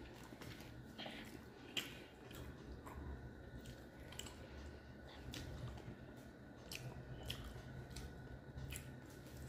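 Faint eating sounds: a person chewing a mouthful of rice and fish curry eaten by hand, with scattered soft wet clicks.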